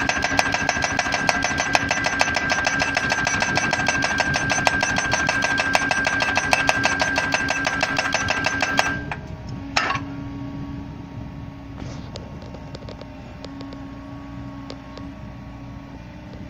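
Ingetrol Poledrill hydraulic pile driver hammering a post with rapid, evenly spaced blows over a steady whine, stopping abruptly about nine seconds in. A single sharp knock follows about a second later, then the machine's engine runs on more quietly.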